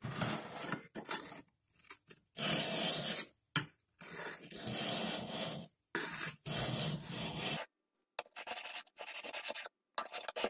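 Steel scissor blade rubbed flat back and forth on a very fine sharpening stone, rasping strokes that lap rust off the inside face of the blade. The strokes are long with short pauses, then quicker and shorter in the last couple of seconds.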